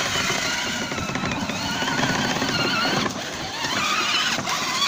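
Peg Perego Polaris 850 24-volt children's ride-on ATV driving across grass in its fast second gear: the electric drive whines, its pitch wavering up and down as the load changes, over the rumble of plastic wheels on the turf.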